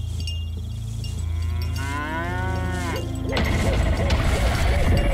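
A cow mooing once, a long drawn-out call that rises, holds and then drops off, over a steady low hum. About three seconds in, a louder, busier sound with quick repeating notes takes over.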